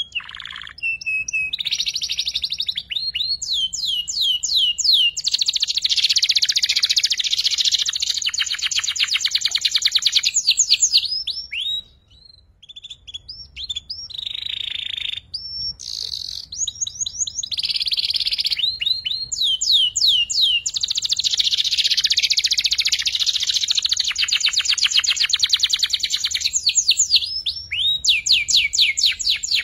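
Young domestic canary singing, practising its chattering trill song: runs of quick sweeping notes that lead into long, very fast trills, with a brief pause about twelve seconds in before the song picks up again.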